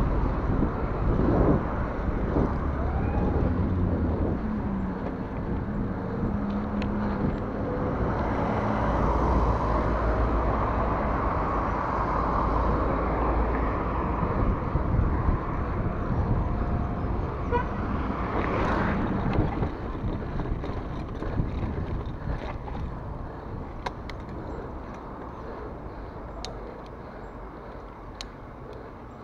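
Wind and road noise on a mountain bike's handlebar-mounted camera while riding, with motor traffic passing; the rushing eases toward the end, where a few sharp ticks come through.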